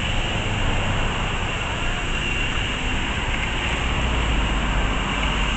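Street traffic: cars driving past close by, a steady rush of engine and tyre noise whose low rumble swells about four seconds in as a car passes.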